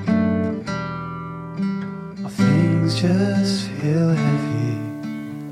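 Background music: a song with strummed acoustic guitar, and a gliding melody line entering about halfway through.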